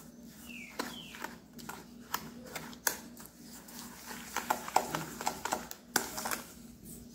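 A spoon beating butter, sugar and eggs together in a mixing bowl, knocking and clicking irregularly against the bowl.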